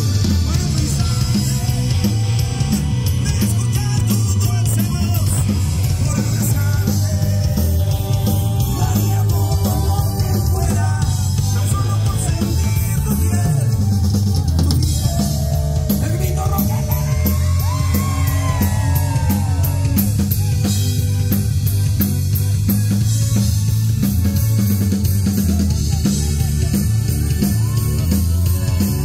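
Live rock band playing loud through a PA system, with drum kit and electric guitar and a heavy, bass-laden sound as heard from among the audience.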